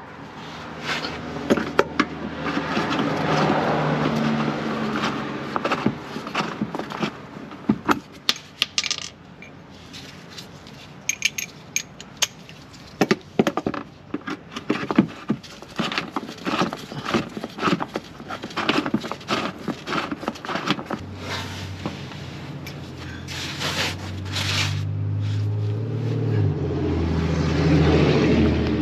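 Irregular metallic clicks and clinks of a socket wrench and hand tools working the fasteners of a plastic underbody panel. A low steady hum sounds briefly a few seconds in and again, louder, through the last third.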